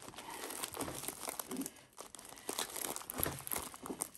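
Diamond painting canvas and its protective cover sheet crinkling and crackling unevenly as they are rolled up tightly by hand, with a short lull about two seconds in.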